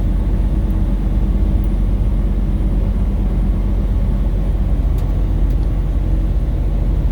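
Motor vehicle engine running steadily with a low, even rumble.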